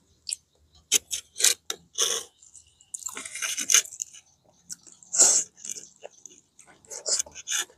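Close-up sounds of a person eating deep-fried fish and rice with his hands: irregular crunchy chews and mouth smacks.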